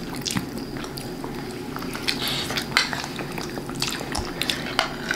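Metal spoons clinking and scraping on plates while eating, in a run of short, irregular clicks.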